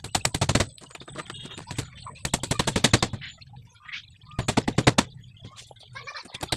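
Impact driver driving screws into plywood: three short bursts of rapid hammering clatter, each lasting about half a second, about two seconds apart.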